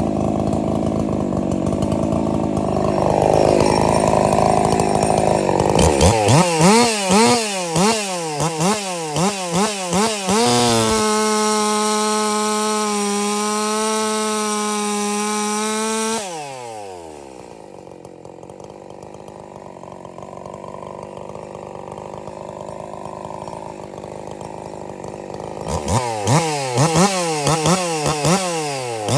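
Husqvarna 346 XP two-stroke chainsaw running, then blipped repeatedly, its revs rising and falling in quick succession. It is then held at a steady full-throttle scream for about five seconds, drops off suddenly to a quieter idle, and is blipped again near the end.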